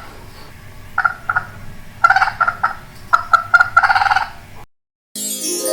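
Chicken clucking in a run of short, quick bursts, some grouped in rapid strings. A short rising chime starts just before the end.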